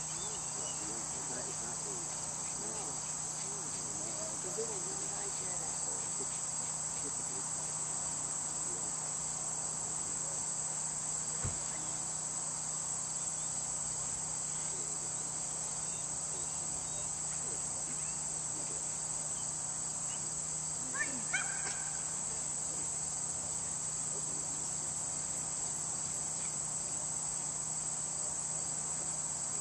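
Steady, unbroken high-pitched chorus of insects such as crickets in late-summer grass, with a couple of brief faint sounds about two-thirds of the way through.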